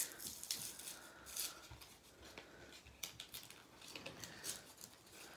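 Plastic blister pack of a mechanical pencil being worked open by hand: irregular crackling, crinkling and sharp clicks of stiff plastic and card.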